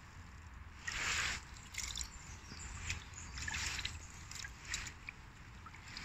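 Shallow pebbly stream trickling, with about four brief sloshing swells of water around a hand dipped into the flow, over a steady low rumble.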